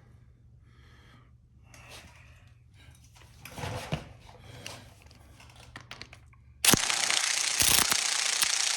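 Quiet clinks and rustles of tools being handled, then about seven seconds in an impact wrench starts hammering loudly on the front sprocket fastener and keeps going.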